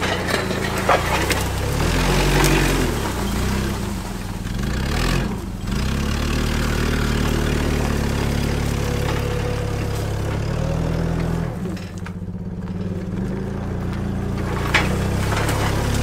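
Propane-fuelled Hyster 50 forklift engine running under load, its speed rising and falling several times as it pushes through a pile of cut tree branches, with a few sharp cracks of branches.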